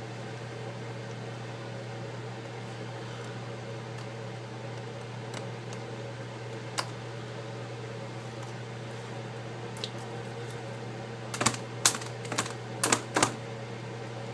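Steady low hum with a few sharp clicks and taps, most of them bunched together near the end, as small tools and parts are handled while the plastic liners are peeled off the adhesive strips for the tablet's new digitizer glass.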